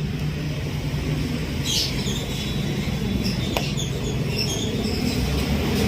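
Steady low engine rumble, as of a vehicle running close by, with one sharp click about three and a half seconds in.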